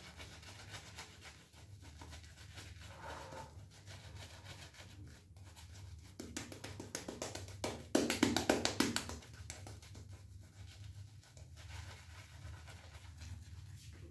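Shaving brush swirling wet soap lather on the face: rapid, faint scratching brush strokes, with a louder stretch of brushing about eight seconds in.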